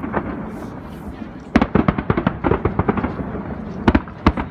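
Aerial firework shells bursting. A sparser stretch of about a second gives way to a rapid run of bangs and crackles, then two sharp, louder bangs near the end.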